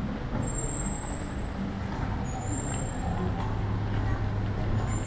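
City street traffic with a vehicle engine running, a low steady hum that grows stronger in the second half. Faint short high-pitched tones sound three times.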